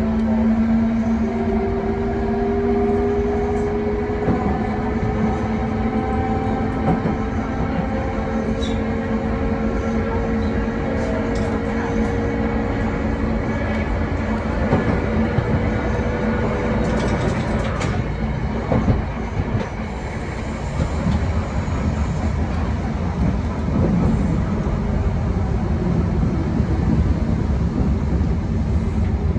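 Traction motors and gears of a 1928 Kawasaki-built wooden tram with nose-suspended drive, whining with a slowly rising pitch as the car accelerates. After about 17 seconds the whine fades, and the rumble and clatter of the wheels on the rails carry on.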